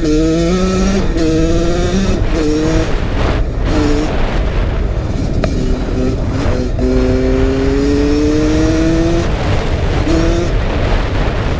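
Kawasaki KX85 two-stroke dirt bike engine revved hard under riding load. Its pitch climbs and then drops in short steps through the first few seconds as the rider shifts or eases off, then holds one long slow rise before more brief cuts near the end. A steady low wind rumble on the microphone sits under it.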